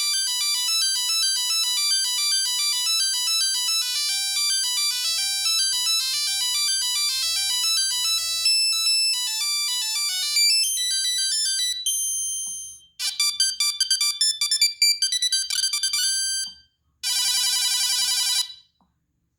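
Google Pixel 3a preloaded ringtones playing. First a quick melody of high chiming notes for about twelve seconds. After a short break comes another few seconds of chiming electronic notes, then a buzzy warbling tone of about a second and a half that cuts off.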